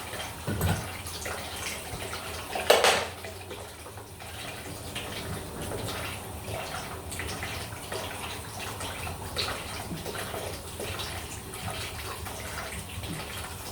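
Mains water running and splashing steadily from an open pipe, because the stop cock has not fully shut off the supply. There is a brief louder burst of noise about three seconds in.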